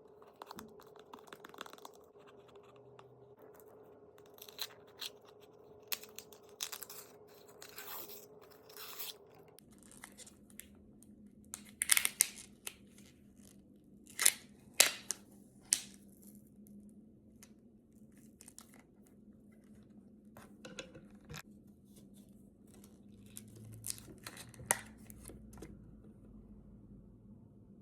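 Plastic packaging being peeled off a peel-off strawberry jelly: irregular crinkling and sharp tearing crackles, in short scattered bursts with a few louder clusters around the middle, over a faint steady hum.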